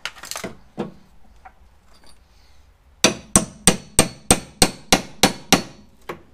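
A few light metal clicks and scrapes, then, about three seconds in, nine sharp hammer blows at about three a second on a chisel or pry tool set into the car's quarter-panel seam. Each blow rings briefly off the sheet steel. The blows are working the panel loose where heat-softened panel bond holds it to the body.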